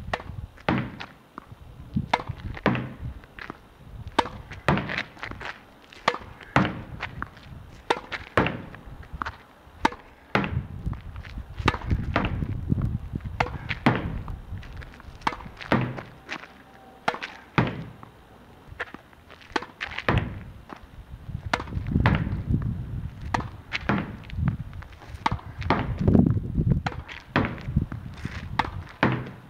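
A tennis ball being hit hard against a practice wall in a continuous rally: sharp pops of the racket strings striking the ball, alternating with thuds of the ball hitting the wall and bouncing on the hard court, in a steady repeating rhythm.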